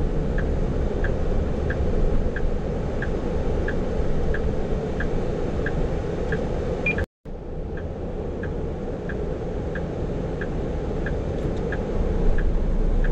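Cab-interior running noise of a HINO heavy tractor-trailer truck, a steady engine and road rumble, with a turn-signal indicator ticking about one and a half times a second. The sound cuts out completely for an instant about halfway.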